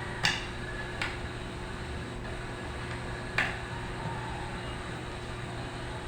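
Three short, sharp clicks from a small Type-C connector and its cable being handled and plugged, over a steady background hum.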